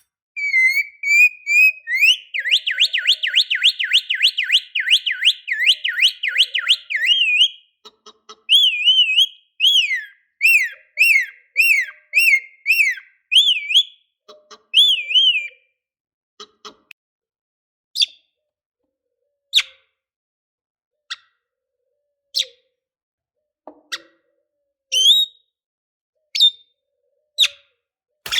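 Lovebird singing. It opens with a brief whistle, then gives a long, fast, warbling trill of about five seconds, the chatter keepers call 'ngekek'. Slower separate chirps follow, then single sharp chips about every second and a half.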